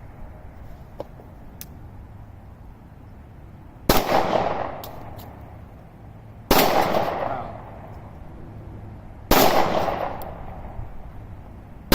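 Rock Island Armory 1911 compact .45 ACP pistol firing slow single shots: three reports about two and a half to three seconds apart, each with an echoing tail, and a fourth right at the end.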